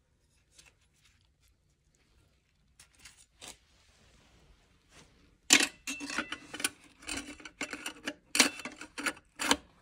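Steel and friction clutch plates of a ZF 8HP55 automatic transmission clinking as they are handled and stacked into the clutch pack. A few faint clicks at first, then from about halfway a quick run of sharp metallic clinks, some ringing briefly.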